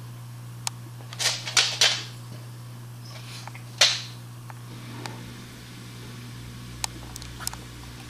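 German wirehaired and shorthaired pointers sniffing at treats held close to their noses: a few quick sniffs about a second in and one stronger sniff near four seconds. Faint wet clicks of lip-licking come near the end, over a steady low hum.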